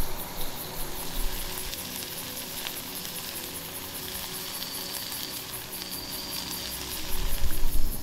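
Meat sizzling and frying in a cast iron skillet over a campfire, with a few small crackles from the fire. Wind rumbles on the microphone at the start and again shortly before the end.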